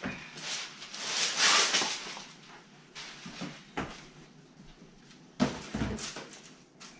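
Kitchen handling noises: a loud rushing hiss about a second in, then a few scattered knocks and clunks, the sharpest about five and a half seconds in.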